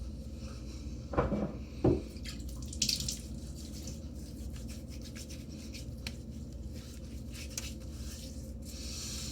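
Water splashing and dripping at a sink after a wet shave, with two louder splashes about a second in and a short hiss of water near three seconds, then small drips and clicks.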